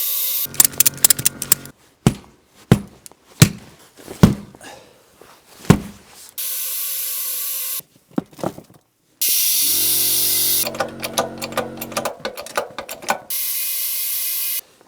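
Compressed air hissing in four bursts from a tire inflation nozzle, each starting and stopping abruptly, while a ratchet strap clicks quickly in between and there are about five sharp knocks. The tire bead is not sealing on the rim, so the tire is not taking air.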